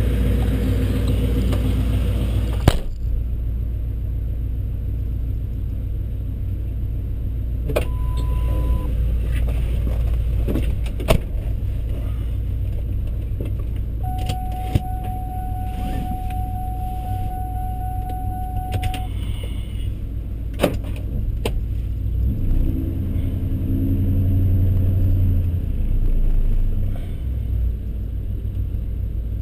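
A 2002 Ford Mustang GT's 4.6-litre V8 idling through long-tube headers and a straight-piped exhaust, heard from inside the car, getting louder for a few seconds near the end. A door shuts with a sharp thud about three seconds in, and a steady tone sounds for about five seconds midway.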